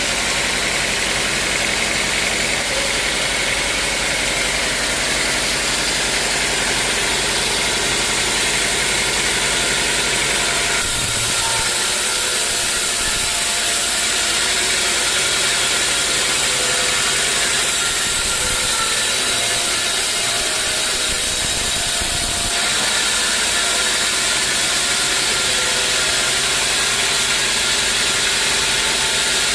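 A machine running steadily, like an idling engine, with an even hiss over it. Its sound changes about a third of the way in and returns near two-thirds.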